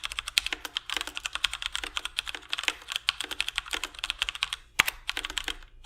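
Fast, continuous typing on a Razer Pro Type Ultra mechanical keyboard with Razer Yellow linear switches: a rapid run of key clicks that pauses near the end, with one sharper click at the start of the pause.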